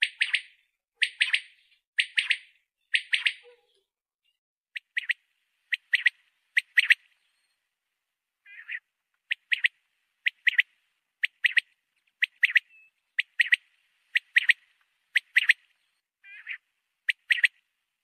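Quail calling: short, sharp high notes in quick groups of two or three, repeated about once a second with brief pauses.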